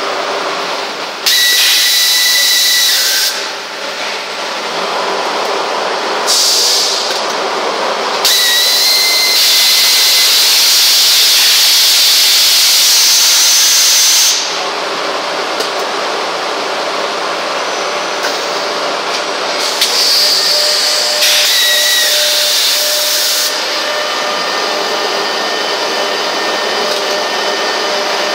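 Machine-shop noise from a robot-tended CNC gear machining cell: a steady machine drone broken by several loud hissing blasts, the longest about six seconds, each carrying a thin high whistle.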